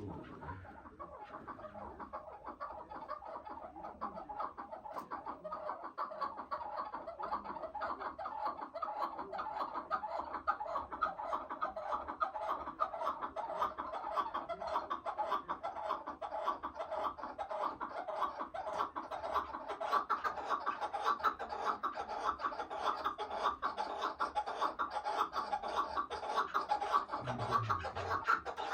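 Chukar partridge calling in a fast, unbroken run of repeated chuck notes that grows louder over the first several seconds.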